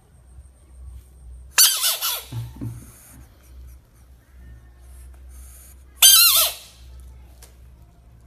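Frog distress screams: two short, high-pitched squeals, about four seconds apart, each sliding down in pitch.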